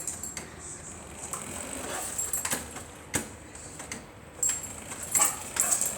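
A few faint, scattered clicks and knocks from a dog moving about during play.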